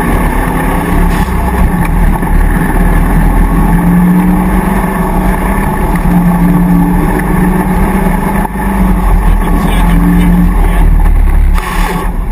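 Land Rover off-road racer's V8 engine running hard as it drives a muddy course, its note swelling and easing in turn. A brief rush of noise comes near the end.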